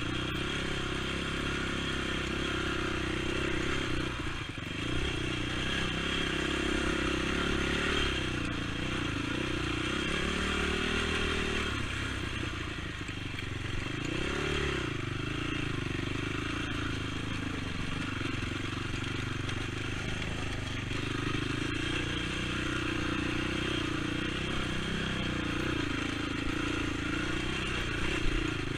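ATV engine running under riding load, its pitch rising and falling repeatedly as the throttle opens and closes.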